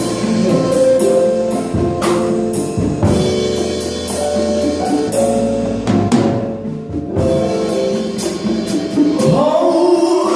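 Gospel worship music: singing over a drum kit and sustained chords, with the singing rising and bending in pitch near the end.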